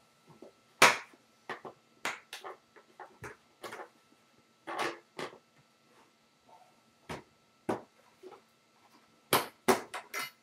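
Irregular plastic clicks and knocks from a BucketMax shop vac's latches and powerhead lid being worked on its bucket, with the sharpest knock about a second in and a quick cluster near the end.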